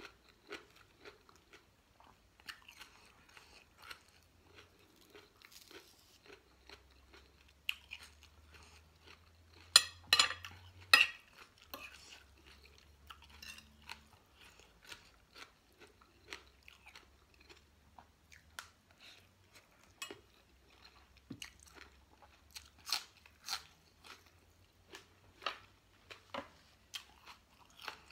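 Close-up crunching and chewing of fresh raw vegetables and a fermented-fish rice-noodle salad, a string of short crunches, loudest around ten to eleven seconds in.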